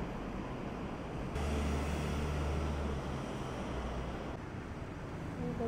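Steady low rumble and hiss of background ambience, with a deeper hum that swells from about a second and a half in and fades by about four seconds.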